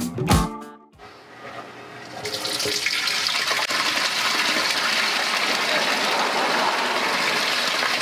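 Muddy water pouring from a drain pipe outlet into a concrete storm sewer basin and splashing on its floor; the flow starts faint and swells to a steady rush about two seconds in. It is the sump pump and downspout drain line discharging into the storm sewer.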